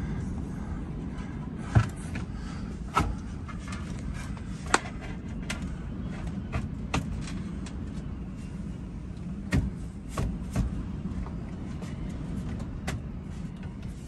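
A board knocking and tapping against the wall as it is held up and fitted in place, about half a dozen sharp knocks, the loudest about two seconds in, over a steady low rumble.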